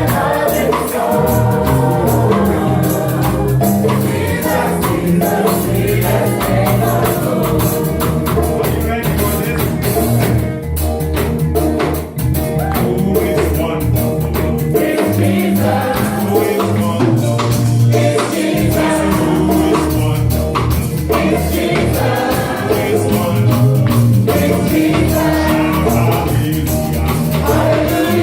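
Gospel worship music: several voices singing over steady instrumental backing with percussion.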